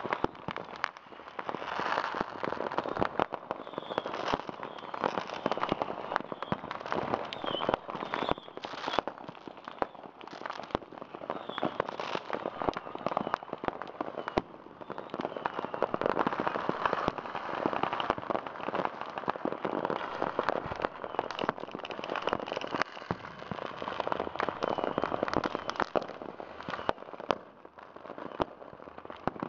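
Many fireworks and firecrackers going off at once, a dense continuous crackle of pops with no break, and a few faint short whistles in the first half.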